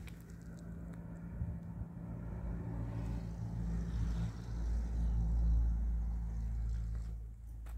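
A motor engine running steadily with a low hum. It swells to its loudest a little past halfway, then fades near the end.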